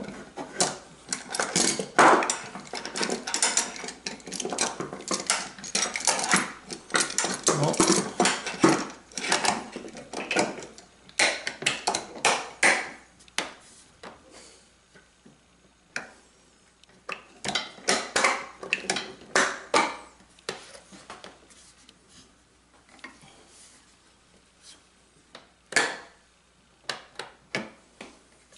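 Metal bench hold-down clamps clicking and clanking as they are set in the bench's dog holes and tightened down onto a glued wooden panel, with light wooden knocks. The clatter is dense for the first half, then thins to scattered clicks and taps.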